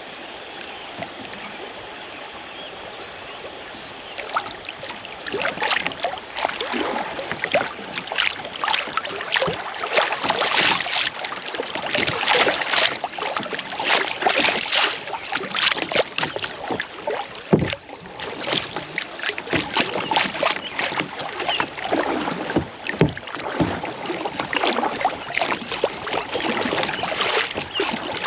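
Kayak paddle splashing in river water, stroke after stroke in an uneven rhythm, starting about four seconds in after a steady rush of flowing water.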